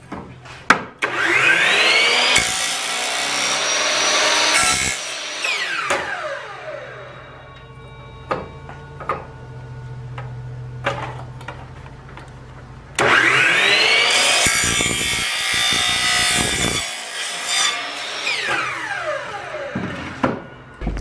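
Ridgid miter saw started twice, each time cutting through black plastic sewer pipe. The motor whine rises as the blade spins up, the cut is the loudest part, and the whine falls as the blade spins down. A few knocks and clicks in between as the pipe is moved on the saw table.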